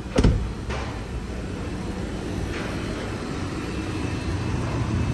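A car door shutting with a sharp thump about a quarter second in, followed by a lighter knock, then the steady running of the 2017 Jeep's idling engine with its air conditioning on, heard under the open hood.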